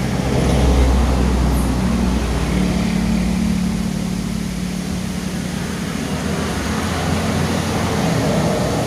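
Strong gusting wind rumbling and buffeting the microphone. It swells about a second in, then eases slowly.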